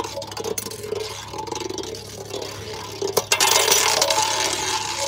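Beyblade Burst spinning tops clicking and scraping on a bare metal playground disc. About three seconds in there is a sharp knock, and the ring-shaped piece of one top lies loose, a sign that it burst apart. After the knock, the remaining top's scraping on the metal grows louder.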